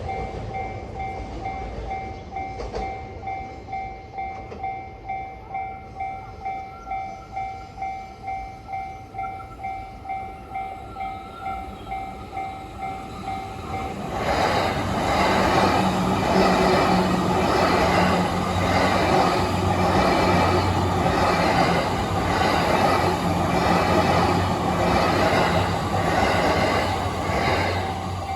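Japanese level-crossing warning bell ringing in a steady rhythm of about two strokes a second. About halfway through, a train passes close by, loud, with its wheels clattering rhythmically over the rail joints until near the end.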